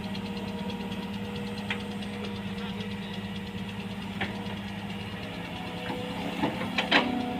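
Heavy diesel engine running steadily at low revs, with a fine even pulsing. A few sharp knocks sound over it, with a cluster of louder ones near the end.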